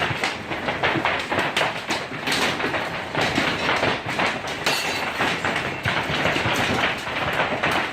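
Rockfall: many rocks tumbling down a volcano slope and knocking against each other in a dense, continuous clatter.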